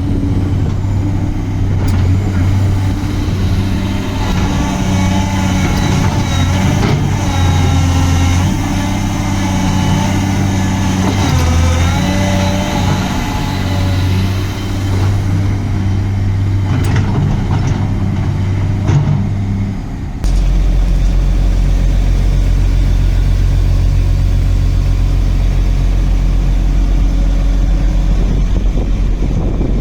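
Cat 345C excavator's diesel engine (a Cat C13) running loud, with a whine that wavers in pitch over it for about the first two-thirds. About 20 seconds in, the sound changes suddenly to a steady, lower, even drone.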